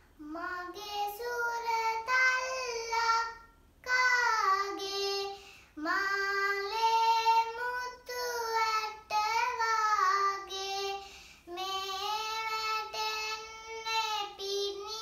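A young girl singing a children's song solo and unaccompanied, in short phrases with brief breaths between.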